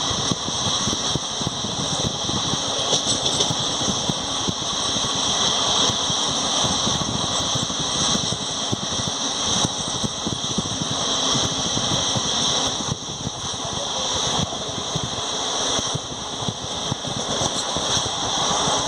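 Passenger express train running at speed, heard from inside the coach: a steady rumble and rush of wheels on rails, with light clicks all through.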